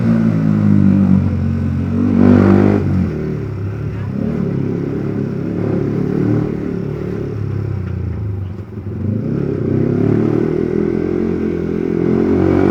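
Modified Yamaha R15 V3's 155 cc single-cylinder engine running through a loud aftermarket exhaust while riding. It revs up and falls back about two seconds in, runs at lower revs through the middle, and climbs again near the end.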